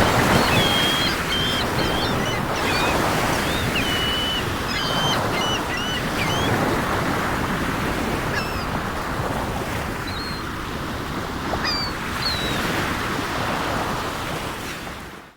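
Sea waves surging and breaking in a steady wash of surf, with seagulls calling over it in short cries, many in the first half and a few later. The sound cuts off suddenly at the very end.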